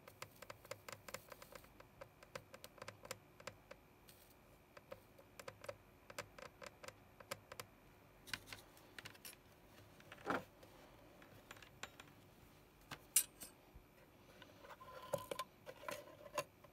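Quiet, irregular light clicks and ticks from soldering-iron work on a small circuit board, dense at first and sparser later, with a couple of louder knocks about ten and thirteen seconds in.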